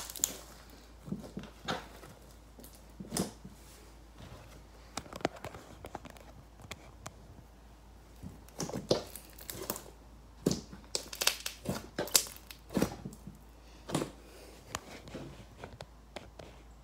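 Hands squishing and pressing a glittery slime, making irregular sticky pops and crackles, busiest in the middle of the stretch.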